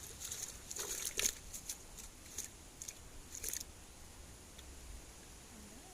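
Irregular small clicks and rustling handling noises, sharpest and most frequent in the first three and a half seconds, then only faint background hiss.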